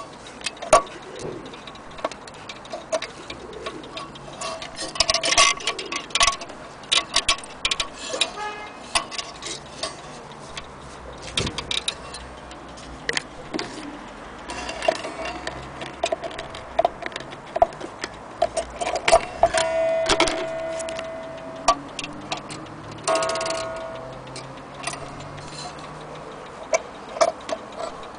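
Antique French mantel clock's brass movement ticking, mixed with irregular clicks and knocks from handling the case and its brass back door. A few short ringing tones sound now and then.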